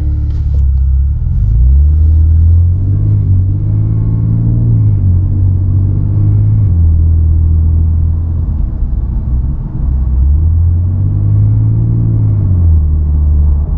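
Infiniti Q50 engine heard from inside the cabin, a low drone that climbs in pitch and drops back twice as the engine speeds up and slows down.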